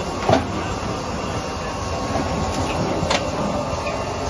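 Megabound automatic rigid box forming machine running with a steady mechanical whir amid factory noise. A sharp clack comes about a third of a second in, and a lighter click about three seconds in.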